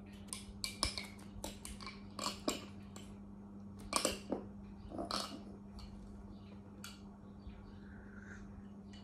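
Small hard objects being handled and set down: a quick run of clicks, taps and knocks over the first five seconds, then softer scattered handling sounds, over a steady low hum.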